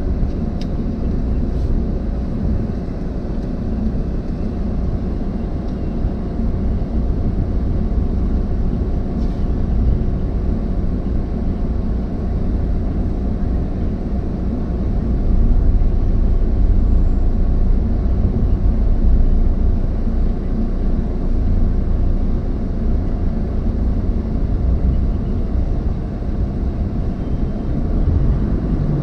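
A car driving along, heard from inside the cabin: a steady low rumble of road and engine noise, which swells a little about halfway through.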